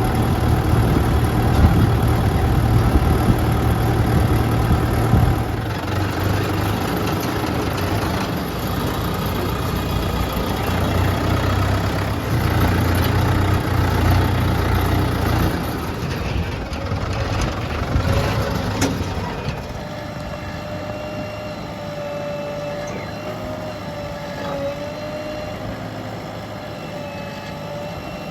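Diesel engines of earthmoving machinery running under load, heavy and low for the first two-thirds. About two-thirds of the way in the sound drops and a steady whine is left over a lighter engine note.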